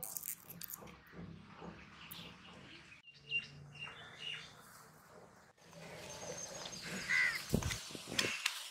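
Faint crackling of dry garlic skins being peeled off the cloves by hand, with birds chirping and a crow cawing. Near the end, two low thuds as a stone pestle is set into a granite mortar.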